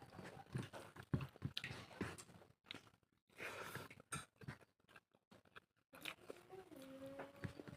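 Close-miked chewing of pork: irregular wet mouth clicks and smacks. Near the end a faint steady tone comes in and steps down in pitch.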